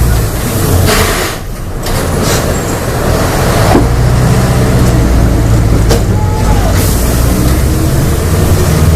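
Volksbus/MAN 17-230 OD bus diesel engine running hard at high revs, with a brief drop in level about a second and a half in before it pulls steadily again.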